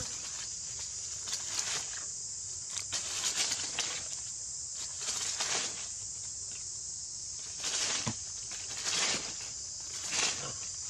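Dry leaves rustling and crackling in several short bursts as they are moved by hand, over a steady high insect buzz.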